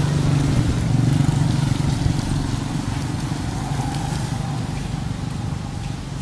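A small motorbike engine running close by, loudest in the first two or three seconds and then fading, over a steady hiss of traffic on a wet street.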